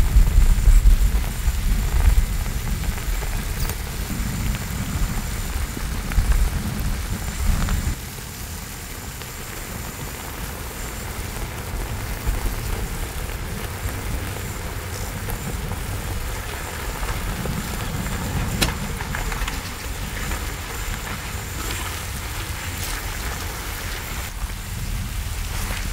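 Chicken pieces sizzling and crackling on a hot cast-iron cauldron-lid griddle, a steady frying hiss. A heavy low rumble sits under it for the first several seconds and drops away about eight seconds in.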